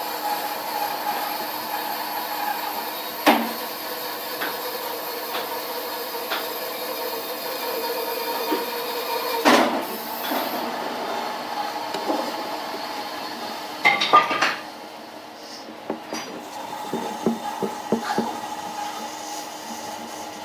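Steel bar clamps clanking and knocking against the wooden blank and the workbench as they are set and tightened, with three sharper knocks and smaller clicks near the end. A steady machine hum runs underneath and stops about two-thirds of the way in.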